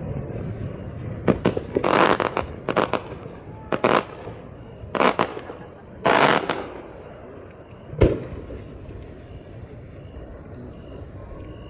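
Aerial fireworks shells bursting overhead, about seven reports in a row. Some are single sharp bangs; others spread into crackling that lasts about half a second. The sharpest and deepest boom comes about 8 seconds in.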